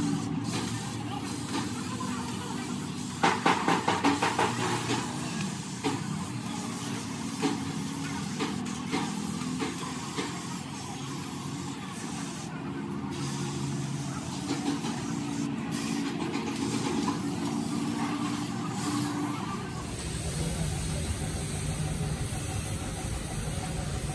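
Compressed-air paint spray gun hissing over a machine running steadily underneath, with a brief burst of fast rattling about three seconds in.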